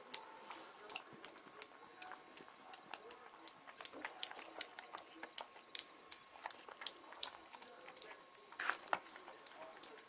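Snow crunching and crackling: many short, crisp clicks at an irregular pace, a few each second.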